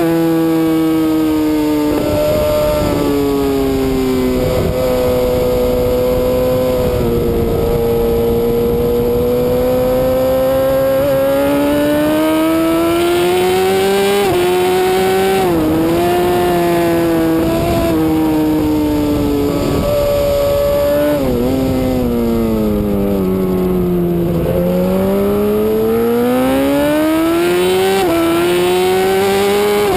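Suzuki GSX-R1000 superbike's inline-four engine heard from on board at racing speed. Its pitch climbs and falls with the throttle, dropping sharply several times and dipping low before climbing again near the end, over a steady rush of wind noise.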